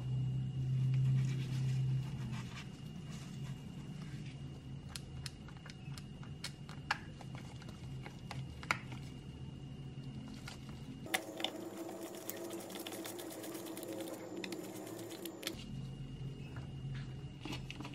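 Small screwdriver turning the screws in the base of a diecast model car: scattered light clicks and scrapes over a steady low hum.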